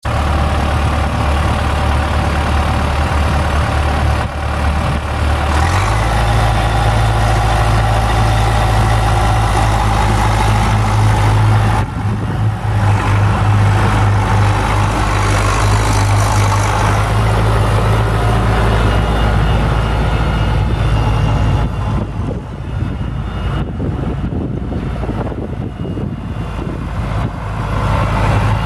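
Four-cylinder 5.0-litre Ford diesel engine of a 1998 Ford New Holland 6640SL tractor running steadily while the tractor drives. The engine speed steps up about six seconds in and then holds.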